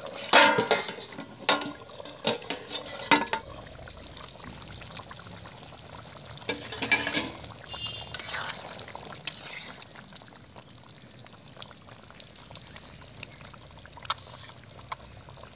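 Steel karahi being uncovered and stirred: sharp metal clanks in the first few seconds, then a spatula scraping and knocking against the pan around seven seconds in. Between and after, the chicken curry simmers with a steady bubbling hiss.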